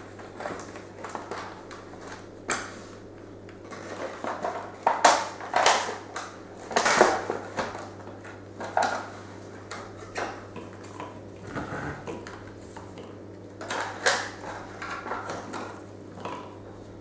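Cardboard box and plastic packaging of a Nerf blaster being handled and unpacked, in irregular bursts of rustling and crinkling. The loudest bursts come about five to seven seconds in and again near fourteen seconds.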